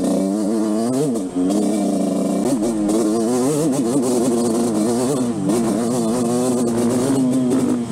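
Yamaha YZ125 two-stroke single-cylinder dirt bike engine under way, its revs rising and falling again and again with the throttle, with a brief drop in level about a second and a half in.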